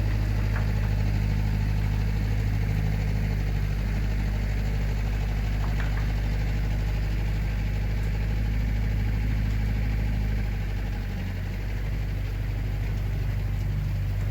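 Diesel engine of heavy earth-moving equipment running steadily with a low, even hum. About ten seconds in, it changes note and eases slightly in loudness.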